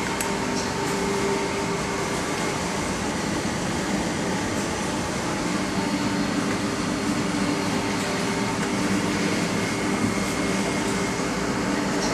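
Steady mechanical hum and air noise of running room machinery, with a few faint held tones and no change in level.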